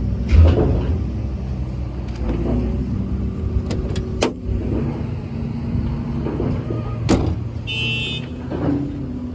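Isuzu diesel engine of a Hitachi 360 excavator running steadily, with a few sharp knocks and a short high-pitched squeal near the end.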